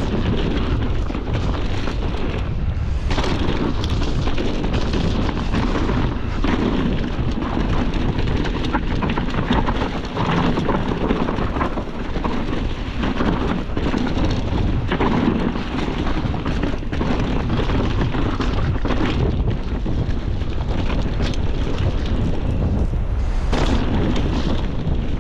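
Mountain bike ridden fast down a dirt forest trail: wind buffeting the microphone in a steady rumble, mixed with tyres on dirt and leaves and frequent knocks and rattles from the bike over rough ground.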